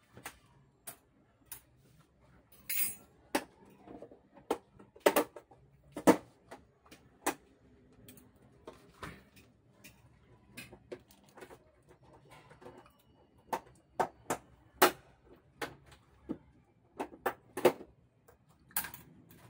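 Scattered sharp clicks and taps, some loud, from hands handling the diffuser sheet and plastic frame of an opened LED TV's backlight assembly, with a short scrape about three seconds in.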